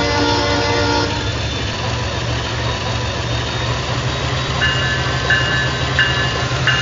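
Sound decoder of an H0 model GE ES44AC diesel locomotive playing through its small speaker. The multi-note air horn stops about a second in, leaving the diesel engine running with a low rumble that rises slightly. About four and a half seconds in, the locomotive bell starts ringing, about every two-thirds of a second.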